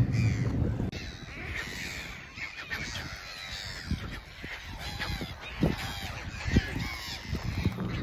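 A dense, overlapping chorus of many seabirds calling at once, gulls and terns, with short harsh cries. A boat motor's low hum stops about a second in, and a few low thumps sound near the middle and later on.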